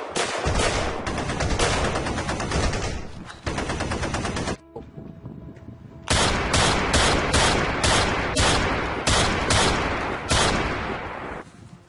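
Rapid gunfire: a dense burst lasting about four and a half seconds, a pause of about a second and a half, then a second volley of more than a dozen quick separate shots that trails off near the end.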